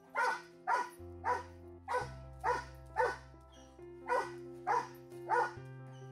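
A large dog barking nine times in quick succession, with a short pause in the middle, over background music.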